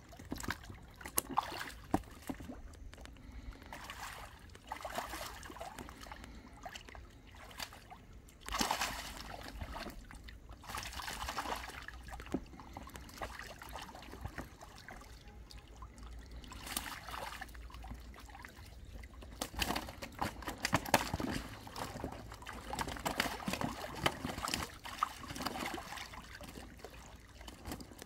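Shallow muddy water splashing and sloshing in irregular bursts as someone wades and grabs fish by hand.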